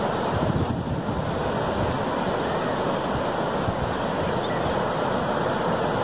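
Atlantic Ocean surf breaking and washing up the beach, a steady wash of noise, with wind on the microphone.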